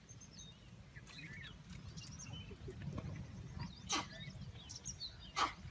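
Small birds chirping faintly over a low steady rumble, with two sharp clicks, one about four seconds in and one near the end.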